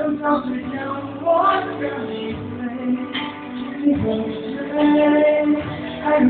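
A man singing into a handheld microphone over backing music, holding a long note about five seconds in.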